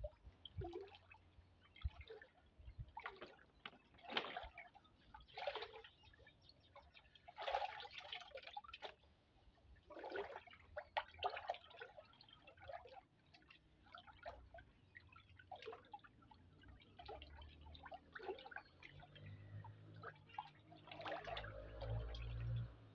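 A hand stirring molasses and microbe solution in a plastic drum, the liquid sloshing and splashing irregularly, a splash every second or so. A low rumble comes up near the end.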